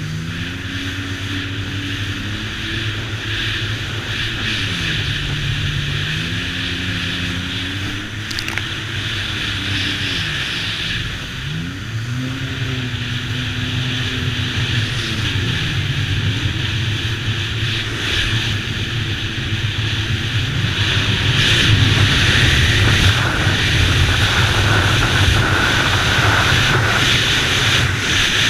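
Sea-Doo water-jet engine running at speed, its pitch repeatedly rising and falling as the throttle is worked, over rushing wind and water noise that grows louder about two-thirds of the way in.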